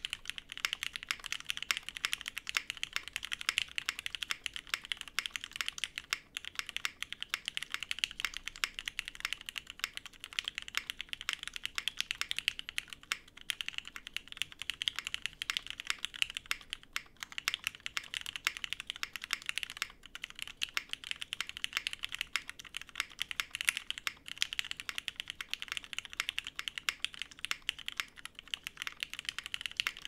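Fast, continuous typing on a GHS.RAR custom mechanical keyboard with a full aluminium plate, GMK keycaps and lubed, broken-in Cherry Hyperglide MX Black linear switches. Keystrokes run together with a few brief pauses.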